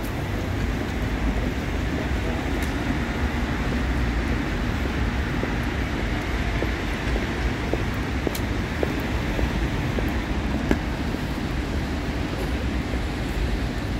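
Steady city traffic and street noise at a tram stop where a KVB light-rail tram stands waiting, with a few faint clicks here and there.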